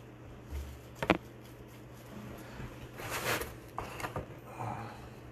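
Trading cards and their packaging being handled: a sharp click about a second in, then a short rustle around three seconds in and a few light clicks.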